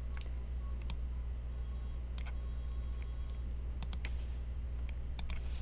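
A few scattered computer clicks, several in quick pairs, as a computer is worked to bring up a map, over a steady low hum.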